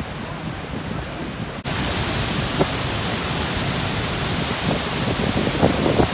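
Niagara Falls' water rushing in a steady, dense wash of noise. About a second and a half in it jumps abruptly to a louder, brighter rush.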